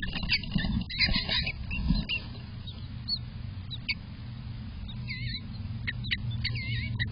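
Eastern bluebirds in a nest box: scuffling and bumps during the first two seconds as the adult comes into the nest, with short, high, squeaky chirps scattered through. A steady low hum runs underneath.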